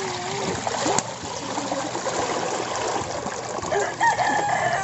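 Water pouring into a large metal pot, a steady splashing rush as it fills. A long held call sounds near the end.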